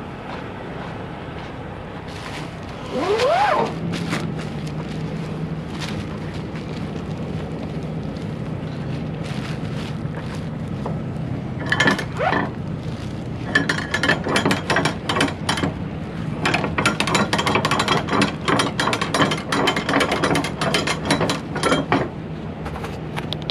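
Flatbed trailer strap winch ratcheting, a fast run of clicks from about halfway through as the cargo strap is worked. A short rising squeal comes about three seconds in, over a steady low hum.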